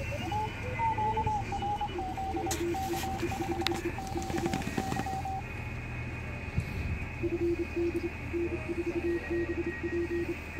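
Morse code (CW) tones from a ham radio transceiver, keyed on and off in dits and dahs at two different pitches. A higher tone sounds through the first half; a lower tone runs alongside it, pauses, and picks up again about seven seconds in. A steady low hum lies beneath.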